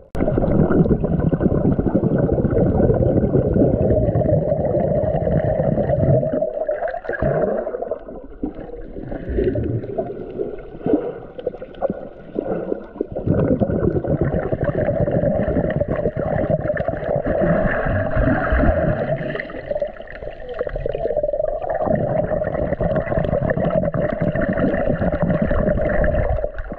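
Underwater sound picked up by a submerged camera: rushing, gurgling water noise under a steady droning hum. It thins out twice, briefly.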